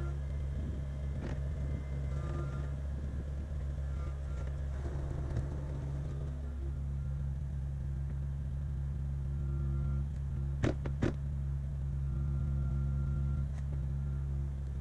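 Kubota KX057-5 mini excavator's diesel engine running steadily, with a fainter higher tone coming and going over it. Two sharp knocks, close together, come about two-thirds of the way through.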